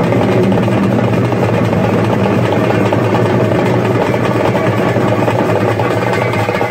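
Group of festival drums played with sticks in a fast, unbroken roll, so dense that the strokes run together into a steady din.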